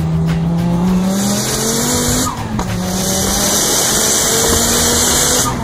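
A car accelerating hard. The engine note climbs, drops at a gear change a little over two seconds in, climbs again and drops once more near the end, with a strong hiss over it.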